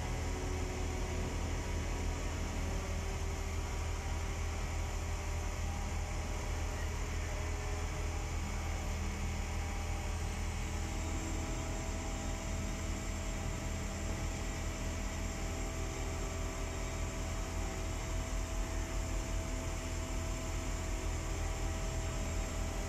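Mobile crane's engine running steadily while it holds and shifts a concrete bridge girder: a constant low drone with faint steady higher tones over it.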